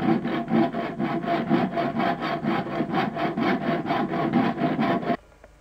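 Hand saw cutting through a wooden board clamped in a vise, in rapid, even strokes about five a second, stopping abruptly about five seconds in.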